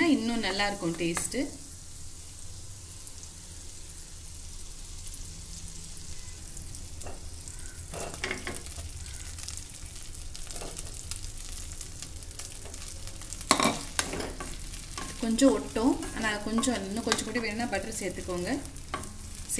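Butter sizzling in a nonstick pan as a wooden spatula stirs it, louder for the first second or so and quieter after. Pieces of steamed idli go into the pan, with a few knocks and scrapes of the spatula, and the stirring and sizzling pick up again near the end.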